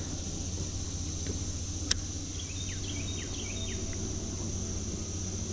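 Steady chorus of insects, an even high-pitched drone. A single sharp click comes about two seconds in, and a few faint short chirps sound around the middle.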